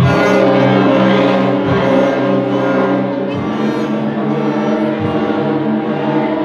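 School string orchestra of children playing held, bowed notes together, the notes changing about every one and a half seconds.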